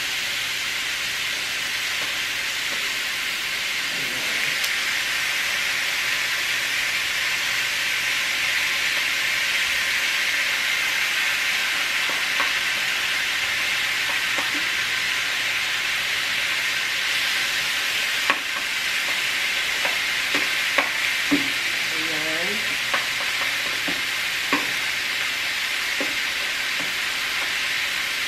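Chicken thighs sizzling steadily on a hot electric grill plate. Now and then the metal tongs click sharply against the meat and grill as the pieces are turned.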